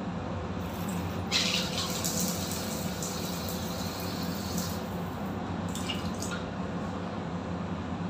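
Water gushing from a bathtub mixer tap for about three seconds, starting about a second in and cutting off sharply. Two short spurts of water follow about a second later, over a steady low hum.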